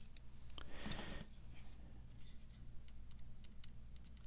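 Faint, scattered light clicks of small metal lock parts and tools being handled while a padlock cylinder is taken apart to inspect its pins.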